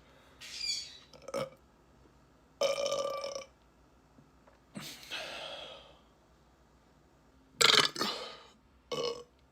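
A person burping repeatedly: about six separate burps of varying length with short pauses between them, some drawn out with a held pitch, the loudest near the end.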